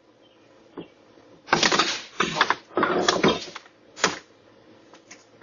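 Clattering and rattling in three short bursts, with a sharp knock about four seconds in.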